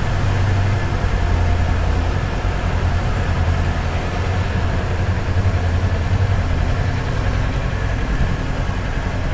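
Sport motorcycle engine running at low revs, a steady low rumble with a fast even pulse, as the bike creeps along and comes to a stop.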